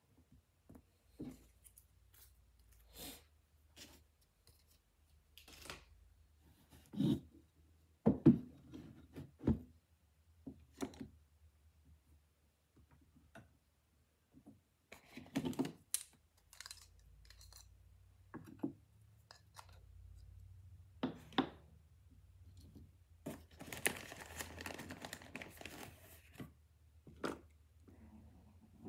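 Quiet handling noises of eyelash-extension tools and supplies on a tabletop: scattered light taps and clicks, with a few seconds of rustling near the end.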